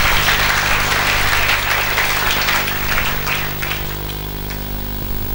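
A congregation applauding, dense clapping that thins out after about three and a half seconds, over a steady low hum from the hall's sound system.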